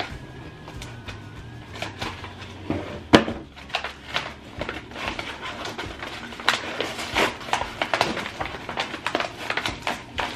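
Brown kraft paper wrapping crinkling and rustling, with sharp clicks and snips as its taped-down packaging is cut and pulled open by hand; one louder snap about three seconds in.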